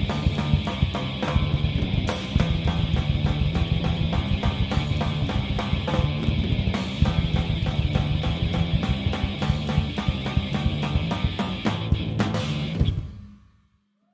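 Live rock band playing loudly, the drum kit driving a steady beat with bass drum, snare and cymbals under the band, with no singing; the song ends and cuts off about thirteen seconds in.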